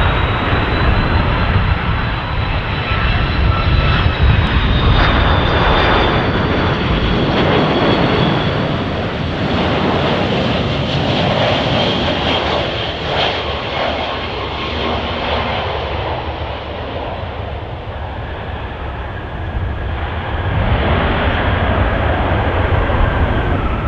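Jet engines of a twin-engine Airbus A330 airliner on the runway: a loud, steady rush with a thin high fan whine, easing off and then swelling again a few seconds before the end.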